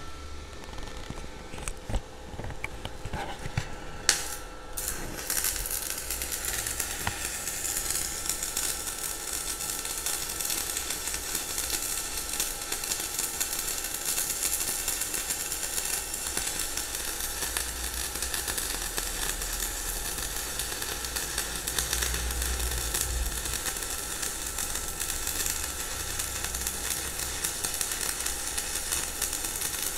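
Stick (MMA) welding arc burning at about 90 amps: after a sharp click as the electrode is struck about four seconds in, the arc settles into a steady hiss and crackle.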